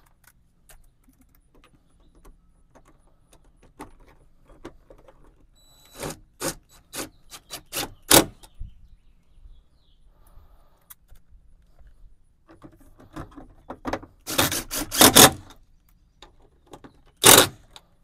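Hand tools tightening the screws of a new door handle: faint ticks, then a row of sharp clicks about a third of the way in, and louder clicking, rattling strokes near the end.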